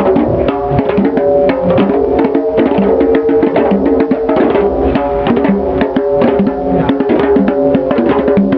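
Hand drums struck with bare hands, playing a fast, steady rhythm of pitched ringing strokes.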